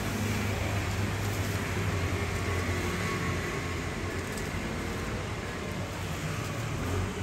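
Steady low hum under an even wash of background noise, with no clear single event.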